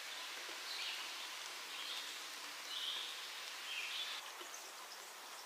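Quiet forest ambience: a steady hiss, with a small bird giving short calls every second or so.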